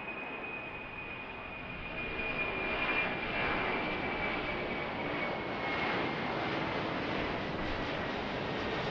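Four-engine Boeing 747-400 jet passing low overhead on its climb-out after takeoff: its engines running at takeoff thrust with a high whine that slowly falls in pitch. The noise swells about two seconds in as it comes overhead.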